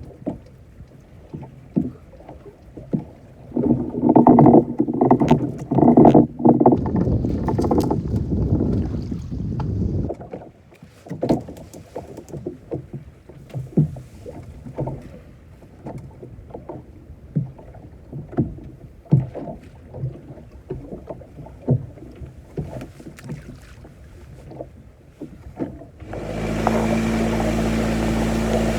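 Scattered knocks and clatter aboard a small fishing boat, with a louder spell a few seconds in. Near the end the boat's engine starts and runs steadily.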